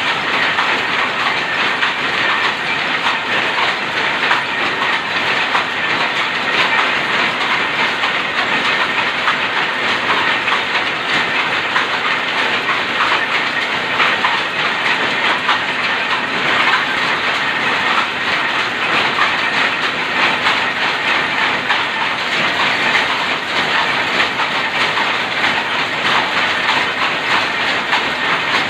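A shuttle power loom converted to a rapier loom, running and weaving plain cloth: a loud, steady, fast mechanical clatter of knocks that never lets up.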